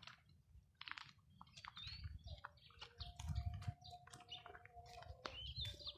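Faint bird chirps over scattered crackling, like steps through dry leaves and twigs in undergrowth.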